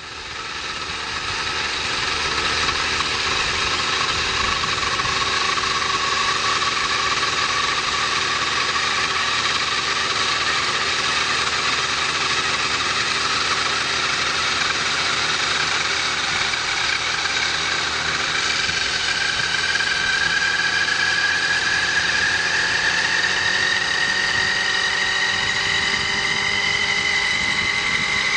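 Nitro glow engine of a Hirobo Sceadu Evolution 50 RC helicopter, an O.S. 50 SX Hyper, running steadily with the model on the ground. Over roughly the last ten seconds its whine rises slowly in pitch as the rotor head begins to spin up.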